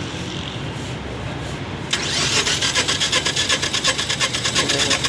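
Mitsubishi eK Wagon engine cranking on the starter motor with its spark plugs out, for a compression test on cylinder number one. It is a rapid, even, rhythmic chuffing that starts suddenly about two seconds in, after a steady low background rumble.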